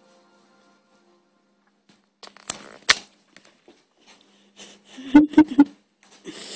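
Footsteps and phone-handling knocks as the phone is carried while walking: near silence at first, then scattered sharp taps and knocks, with a quick run of three about a second before the end.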